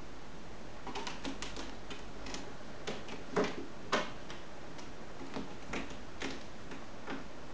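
Irregular clicks and light knocks of cats' claws and paws catching on a plush-covered cat tree with a sisal-wrapped post as they climb and paw at it. The clicks start about a second in, with two louder knocks close together near the middle.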